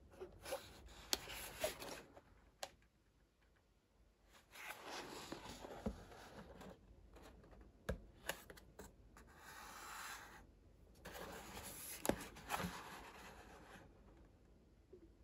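A cardboard gift box holding three small glass whisky bottles being turned over in the hands: stretches of cardboard rubbing and scraping, with a few sharp knocks and taps as it is handled.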